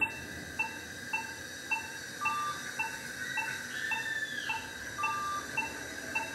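Surgical patient monitor beeping in time with the anaesthetised dog's pulse: short, even beeps nearly twice a second, with a longer, slightly higher tone every few seconds.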